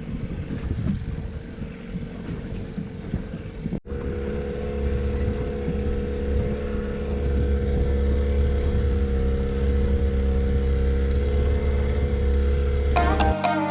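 Motorboat engine running steadily on a drone of level tones, after a few seconds of rougher wind and water rumble. Music starts near the end.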